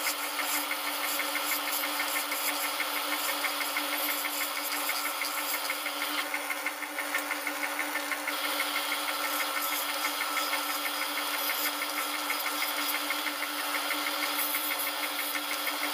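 Wood lathe running while a hand turning tool hollows the end of a spinning wooden box blank, the audio sped up four times: a steady hum with a fast, even rattle of the cut over it.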